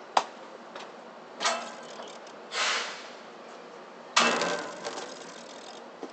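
Keihan 700 series two-car tram at a standstill, releasing compressed air: a sharp click, then short hisses, and a sudden loud hiss about four seconds in that dies away over a second and a half, as the air brakes come off for the tram to move off.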